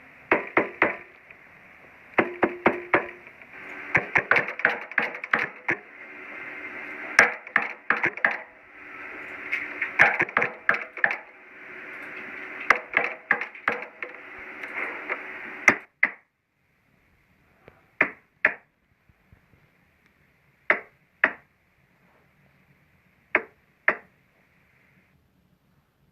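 Knocking on a wooden door: rapid, frantic clusters of knocks with a ringing echo, then after a pause three slow double knocks.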